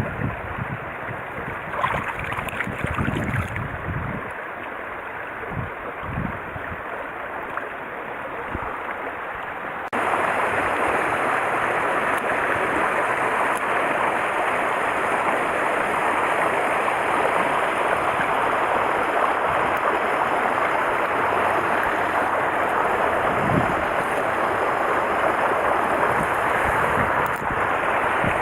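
Mountain stream water rushing with a steady hiss, stepping up suddenly to a louder level about ten seconds in. There are a few low thumps in the first several seconds.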